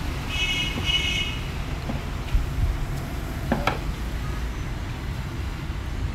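Steady low rumble of background traffic. Near the start come two short high-pitched beeps, then a sharp click about three and a half seconds in.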